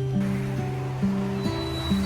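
Background music: a slow line of held low notes stepping to a new pitch about every half second, over a steady rushing hiss.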